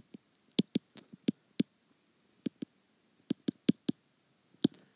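A stylus tapping and clicking on a tablet screen while handwriting: about fifteen sharp, irregular clicks in clusters, with a short pause around the middle.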